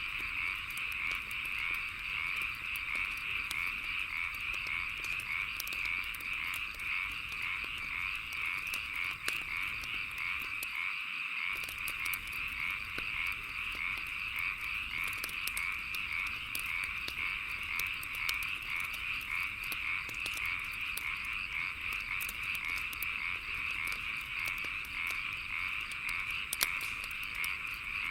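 A dense chorus of frogs croaking steadily, with scattered sharp crackles and pops of a wood fire throughout.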